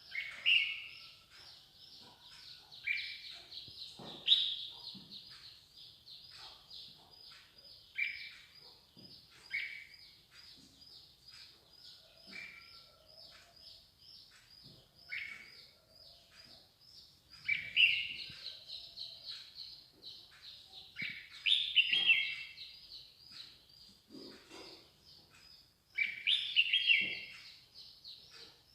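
Birds singing: a steady, fast run of short high chirps, about three or four a second, with louder, lower chirping phrases breaking in every few seconds.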